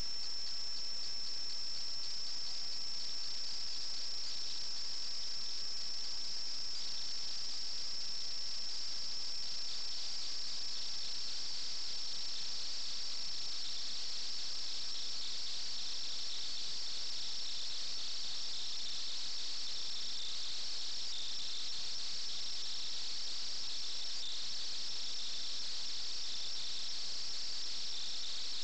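Insects trilling steadily in a continuous high-pitched trill; a second, lower trill joins about twenty seconds in.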